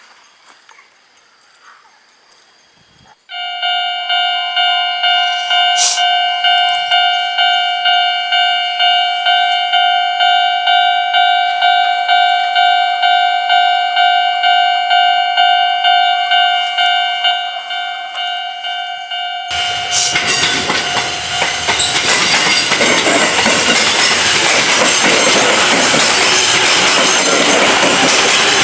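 Japanese level-crossing alarm starts about three seconds in, ringing its electronic bell at about two strokes a second. After about 19 seconds a Sunzu Line electric train passes over the crossing, and its wheel clatter covers the bell.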